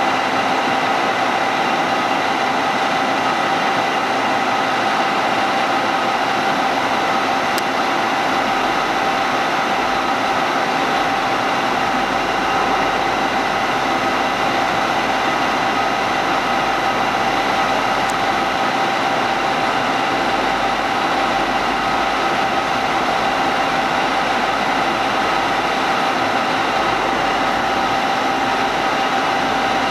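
Wadkin CNC portal mill running, a steady machine whine with several held tones over an even hiss. A low hum joins in about a quarter of the way through.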